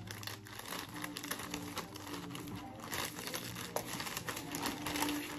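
Thin plastic shipping mailer bag crinkling as it is handled and opened, a steady run of small crackles.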